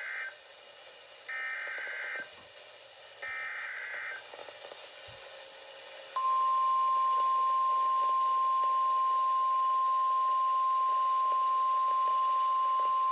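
Emergency Alert System SAME header: the end of one short buzzy burst of digital data, then two more bursts about a second long, a second apart. About six seconds in, a single loud steady tone near 1 kHz starts and holds: the 1050 Hz NOAA Weather Radio warning alarm tone, announcing a severe thunderstorm warning.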